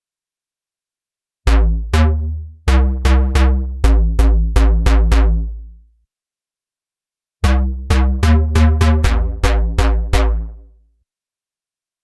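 Synth bass preset 'Jun mono Bass' in reFX Nexus 4 playing two short phrases of about ten notes each, with a pause of about a second and a half between them. Each note starts sharply and dies away quickly.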